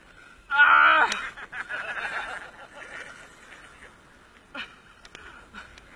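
A person's brief loud cry, falling in pitch, about half a second in, trailing off into fainter noise.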